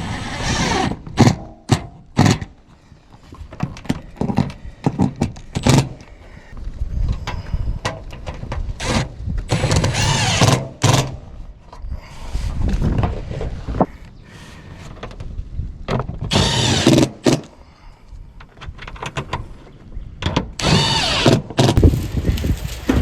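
Power drill driving screws into a metal roof ridge cap in several short runs of about a second each, with sharp knocks and clatter from the metal roofing panels in between.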